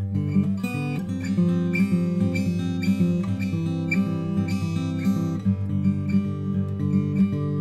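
Acoustic guitar music: a steady run of picked notes over sustained bass notes, ending on a chord left ringing near the end.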